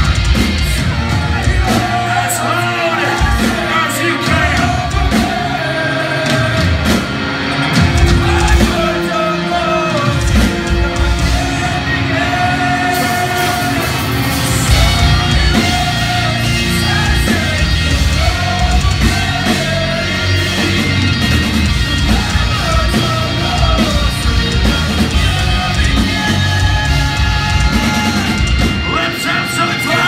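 Live metalcore band playing loud, with distorted electric guitars, drums and a singer alternating between sung lines and shouting, heard from within the crowd.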